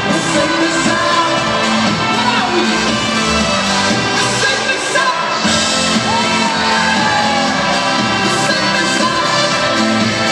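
A live indie-pop band playing loudly with singing, in a large arena.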